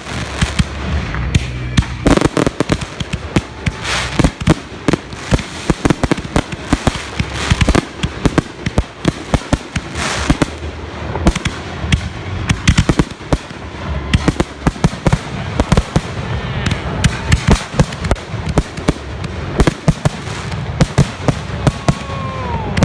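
Firework salutes going off in a finale barrage: a dense, rapid run of sharp bangs, several a second, with crackle between them.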